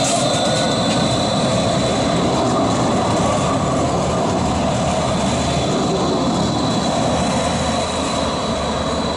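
Dual-system light-rail car (Stadtbahn) running past close by: steady wheel and drive noise with a thin, steady high whine running through it, dropping away near the end as it moves off.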